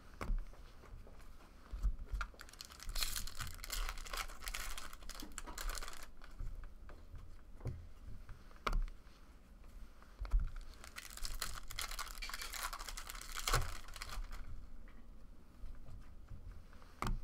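A stack of trading cards being thumbed through by hand, the cards sliding and rustling against each other with light clicks and taps, including two longer spells of rustling.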